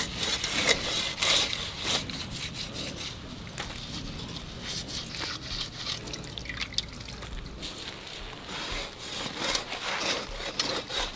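Raw eel being sliced into pieces on a boti's curved blade: wet squelching of the flesh and skin, with scattered small clicks and scrapes as pieces are pressed against the blade.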